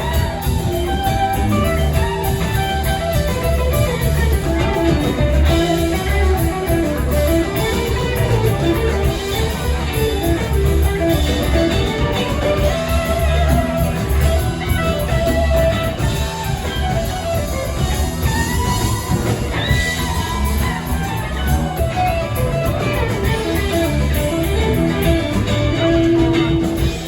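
Live rock band playing an instrumental jam: electric guitar lead lines wandering up and down over bass and drums.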